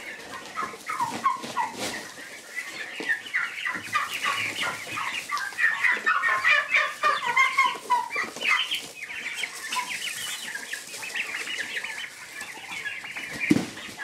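A flock of young Big-6 turkey poults, about 40 days old, peeping and chirping together in a dense chorus of short, high calls. The chorus is busiest in the middle.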